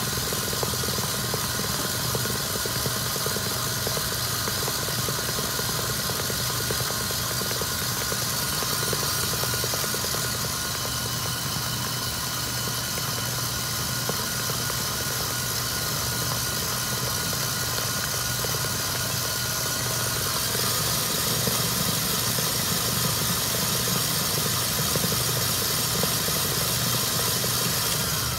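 Commercial bowl-lift stand mixer running steadily, its wire whisk beating egg whites and sugar in a stainless steel bowl toward stiff peaks. The motor winds down at the very end.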